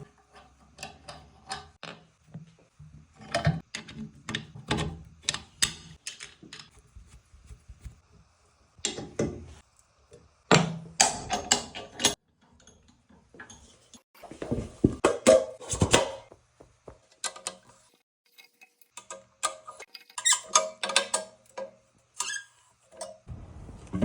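Irregular clicks, knocks and squeaks of hand tools and metal stunt-scooter parts as new wheels and a fork are fitted. Guitar music comes in about a second before the end.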